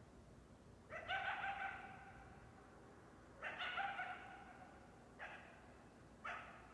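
Coyote giving a series of high calls: two longer ones of close to a second each, then two short ones near the end.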